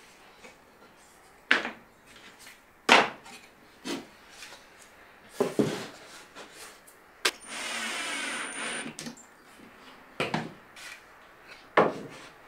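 Wooden drawer frames fitted with metal drawer runners being handled and set down on a plywood workbench: a series of sharp wooden knocks every second or so, with a brief whirring for about a second and a half a little past the middle.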